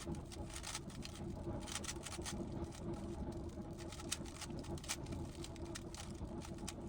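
Quiet, irregular plastic clicking of a GAN 15 speedcube's layers being turned in quick runs during a blindfolded Rubik's cube solve, over a low steady background hum.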